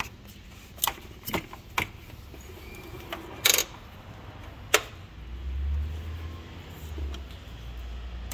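Metal spanner clinking against the fuel-line nuts on a diesel high-pressure fuel pump: a few sharp, irregularly spaced metallic clicks with a slightly longer rattle in the middle. A low rumble comes in for the last few seconds.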